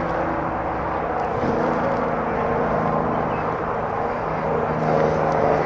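Steady engine drone of a motor vehicle, a constant low hum that holds its pitch over continuous outdoor background noise.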